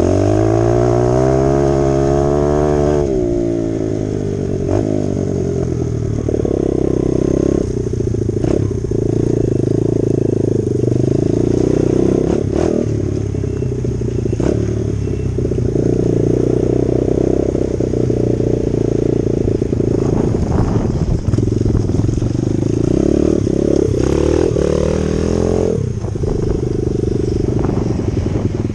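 Dirt bike engine running while riding, its pitch dropping and climbing as it revs in the first few seconds and again near the end, and holding fairly steady in between.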